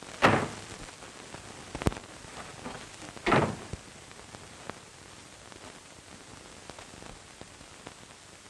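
Steady hiss of an old film soundtrack, with two short thuds and a sharp click between them in the first few seconds.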